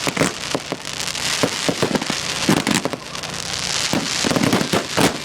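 Fireworks going off in quick succession: many sharp bangs and pops over a dense crackling hiss, easing about three seconds in and then building again.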